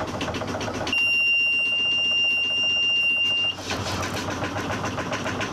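Boat engine running with an even rhythmic clatter while the helm panel's buzzer sounds one steady high beep, starting about a second in and lasting about two and a half seconds.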